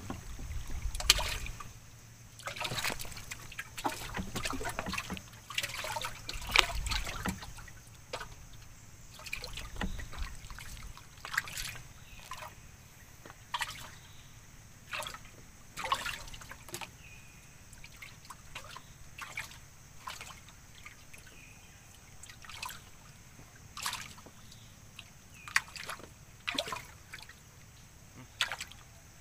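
Water lapping and dripping against the side of a wooden boat, in irregular small splashes and trickles. A few dull low thumps in the first ten seconds or so.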